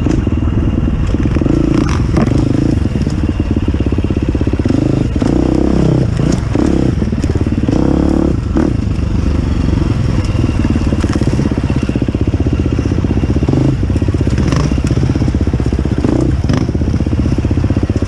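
KTM dirt bike engine running close up from on the bike, its revs rising and falling as it works up a rocky single-track trail. Scattered knocks and clatter come from the tyres and chassis going over rocks.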